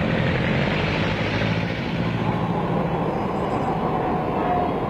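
An engine-driven street tram running: a steady mechanical drone with a low engine hum, under general street noise.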